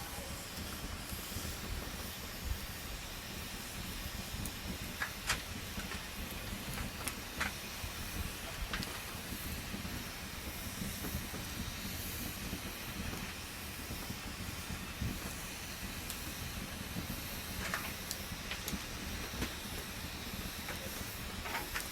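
Wood campfire burning with a steady hiss and a few scattered sharp crackles and pops.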